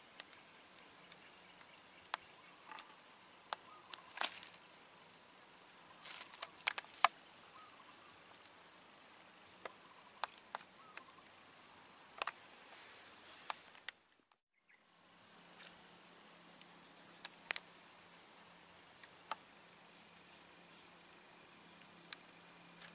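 Insects chirring steadily in a high pitch in swampy grassland, with a few scattered faint clicks; the sound drops out for a moment about halfway through, then resumes.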